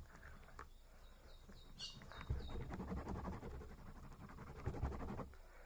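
Sticky homemade shampoo slime being stirred quickly. There is a sharp tap, then about three seconds of a dense run of small wet clicks and squelches as the mixture pulls from the container, before it stops.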